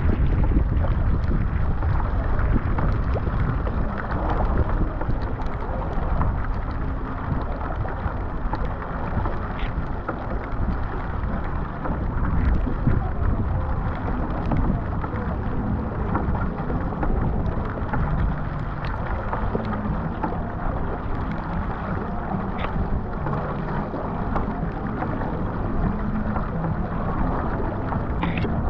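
Steady wind rumble on the microphone with water rushing and splashing along a surfski hull as it is paddled through choppy water, rain pattering on the deck and water.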